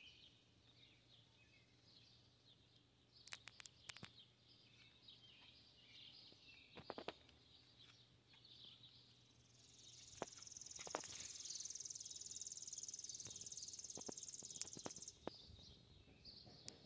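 Near silence with faint outdoor ambience: scattered small bird chirps and a few faint clicks, and from about ten seconds in a steady high insect buzz that lasts about five seconds and then stops.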